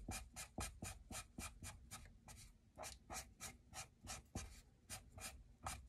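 Sharpie marker tip rubbing on paper in quick, faint, repeated short strokes, about four a second, as a small shape is filled in with ink.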